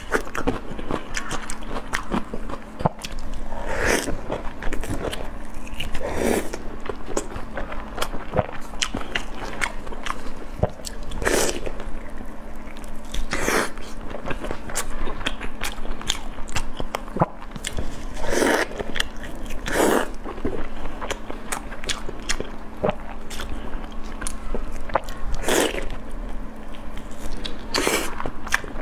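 Close-miked eating of glazed chicken thighs: wet chewing and small mouth clicks throughout, with louder bites and tearing of the meat every few seconds.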